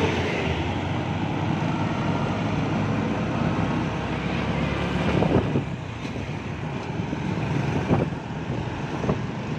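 Steady driving noise from a vehicle on the road: engine hum and road rumble with wind on the microphone while passing close by a tanker truck. There are brief louder bumps about five and eight seconds in.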